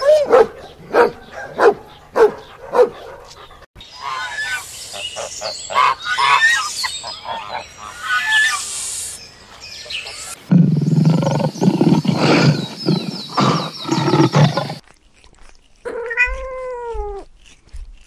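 A Rottweiler barking, a quick string of about six deep barks in the first few seconds. Later there is a loud, rough stretch of about four seconds, and near the end a cat gives one meow that rises and then falls in pitch.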